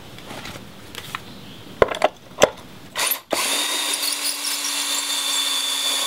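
A few sharp clicks and knocks, then a power drill runs steadily at an even speed for about three seconds, driving a screw down into an aluminum door threshold, and stops suddenly.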